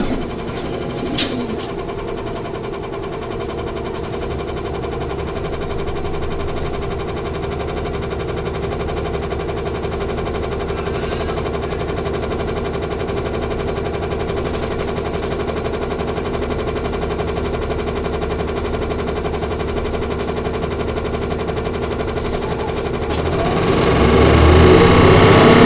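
Cummins Westport ISL G natural-gas engine of a 2011 Orion VII (07.501) city bus running steadily, then working harder and growing louder about two seconds before the end.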